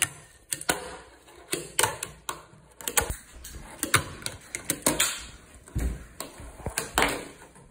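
A fingerboard being flicked through tricks: irregular sharp clacks, a couple a second, as the small board pops and lands on a box and a wooden tabletop. Its wheels roll softly between the clacks.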